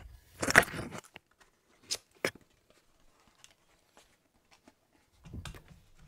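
Paperboard product box being opened by hand: a scrape as the flap is pulled open about half a second in, two sharp cardboard clicks around two seconds in, and a softer rustle of the lid and packing near the end.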